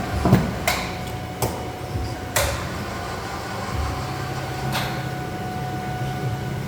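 Three-axis CNC machining center running with a steady hum and a thin steady whine, broken by several sharp knocks, four of them in the first two and a half seconds and one more near the end.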